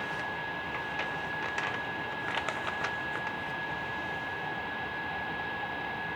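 Steady background hiss with a thin, steady high whine, and a few faint clicks and rustles in the first three seconds, like light handling noise.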